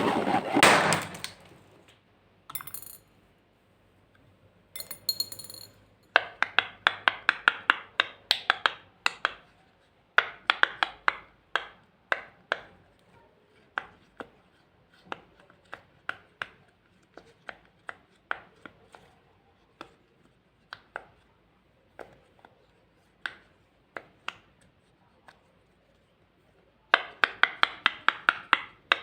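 Sticky glossy slime being worked, giving runs of sharp wet clicks and pops, about four a second at their fastest. The clicks thin out to about one a second through the middle and come thick and fast again near the end.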